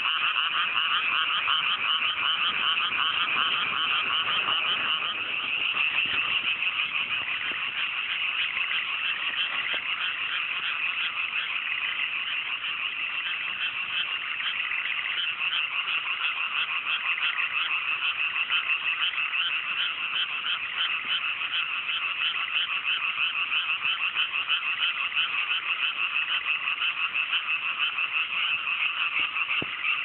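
A dense chorus of many frogs calling at once in a flooded rice paddy, countless rapid croaks overlapping into one continuous trilling wall of sound.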